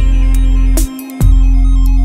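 Electronic background music with a deep, sustained bass and drum hits; the bass drops out briefly about a second in.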